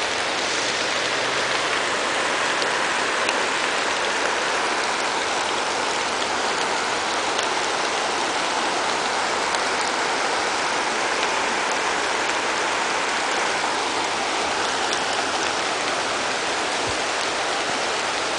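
Fast-moving floodwater rushing past, a steady, even hiss of water.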